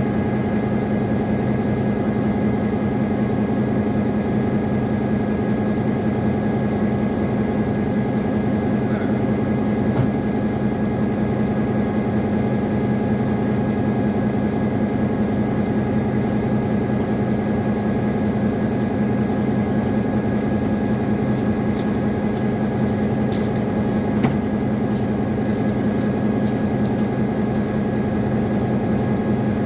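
Diesel locomotive engine running steadily at idle, a constant deep hum with a faint steady whine above it.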